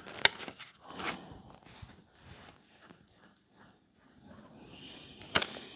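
Hard plastic graded-card slabs being handled: a few sharp clicks and faint rubbing as the cases are picked up, turned over and set down, the loudest click near the end.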